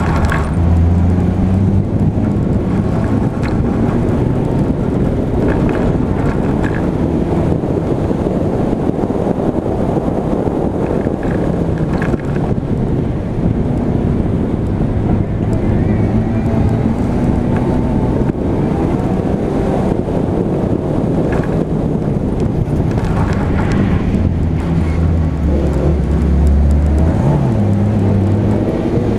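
Daihatsu Charade 1.3-litre autocross car engine running hard under race load, its pitch rising and falling as the revs change, heard from onboard. Wind and loose-dirt road noise run under it.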